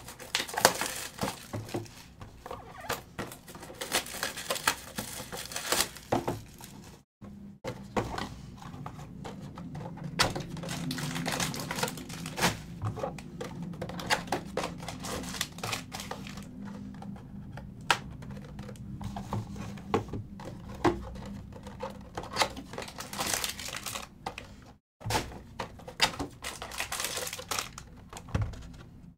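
Hands unwrapping and opening sealed football card hobby boxes: crinkling plastic shrink-wrap, tearing, cardboard being handled, and foil card packs rustling, with many small clicks and taps. The sound cuts out completely twice, briefly.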